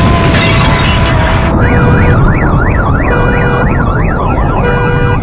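A loud burst of dense noise for about a second and a half, then an emergency-vehicle siren warbling quickly up and down, about three sweeps a second.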